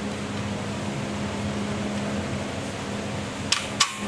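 Two sharp clicks close together near the end, typical of a Lokar transmission shift lever stepping through its detent positions from park, over a steady low hum.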